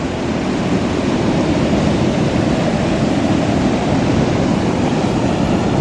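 Ocean surf breaking over a shallow reef shore, a steady, unbroken rush of water noise.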